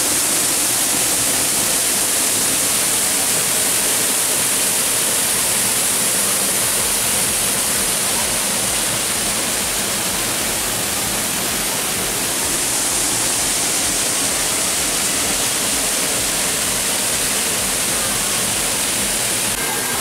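Waterfall pouring over rock into a pool: a steady, loud rushing of falling water.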